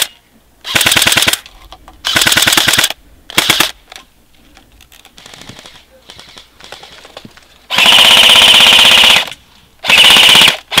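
Airsoft electric rifles firing on full auto in rapid rattling bursts: three short bursts in the first four seconds, then a longer burst of about a second and a half, and a short one near the end.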